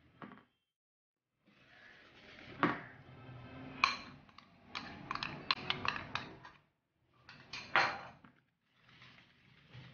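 Metal spoon scraping and clinking against a glass bowl as powdered sugar is knocked out of it into the cake batter. There are a few sharp clinks, a quick run of them around the middle, and two more near the end.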